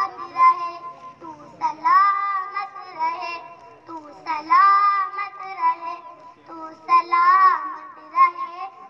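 A child's voice singing a song in long, wavering held phrases, each swelling about every two to three seconds, with no drumbeat beneath it.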